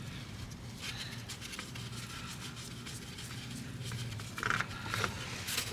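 Used engine oil trickling in a thin stream into a drain pan as the old oil filter is worked loose. A few short scraping clicks of handling come about four and a half and five seconds in.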